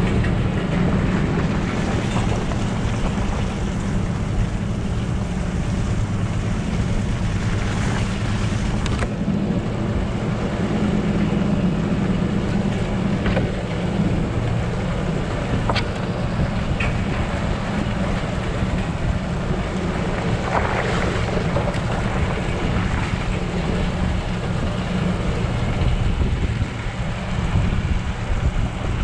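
Ford F-150 pickup driving slowly along a muddy dirt track: a steady low rumble of engine and tyres, with wind buffeting the outside-mounted camera microphone.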